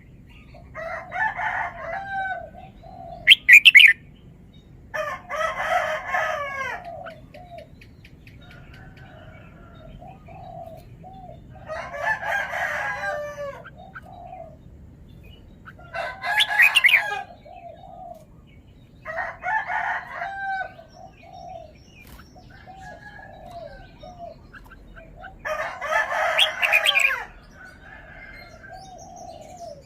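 Red-whiskered bulbul singing: short bursts of quick, warbling whistled notes, about seven phrases repeated every few seconds with pauses between.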